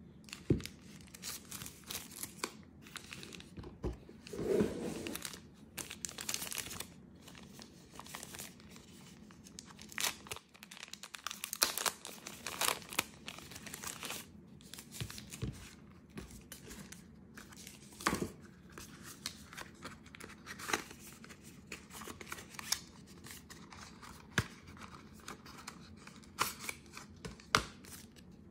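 Clear plastic packaging bag crinkling and being torn open by hand, with irregular crackles and sharp clicks throughout and a louder rustle about four to five seconds in.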